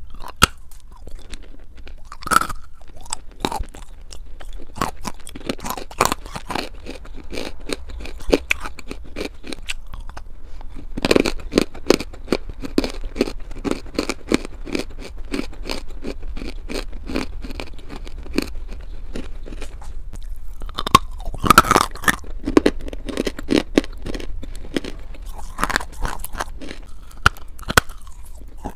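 Close-miked biting and chewing of hard dark grey clay chunks: crisp crunches at each bite, then rapid gritty crunching as the pieces are chewed. The heaviest bites come about two seconds in, around eleven seconds and around twenty-one seconds.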